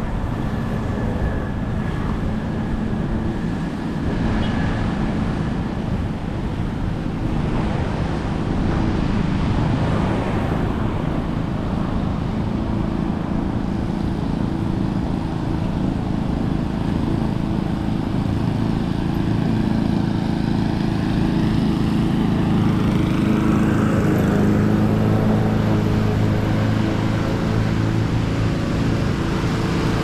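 Motor engines running and passing, a low hum over steady outdoor noise that grows louder past the middle.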